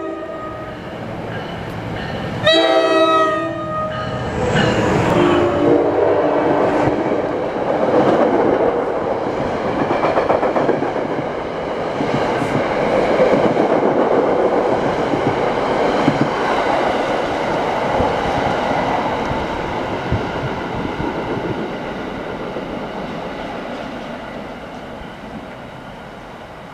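NJ Transit commuter train led by an ALP-45DP locomotive running through a station at speed. The locomotive's horn sounds loudly about two and a half seconds in, with a shorter blast a few seconds later, then the rush and wheel clatter of the passing cars go on and slowly fade near the end.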